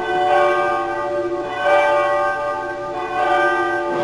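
Recorded church bells ringing, with a new strike about every one and a half seconds, each note ringing on into the next.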